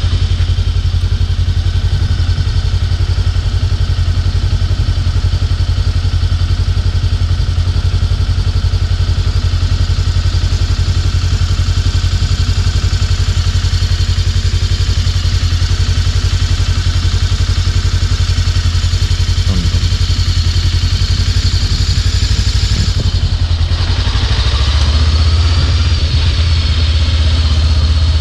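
Voge DS525X motorcycle's parallel-twin engine running steadily, with a change of note that grows louder about 24 seconds in.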